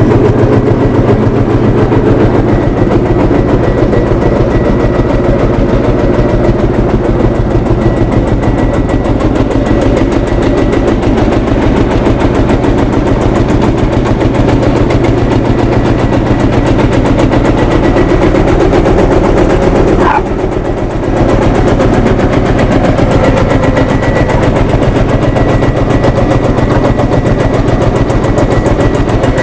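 Field Marshall Series 3 tractor's single-cylinder two-stroke diesel engine running steadily with a rapid, even beat, dipping briefly about two-thirds of the way through.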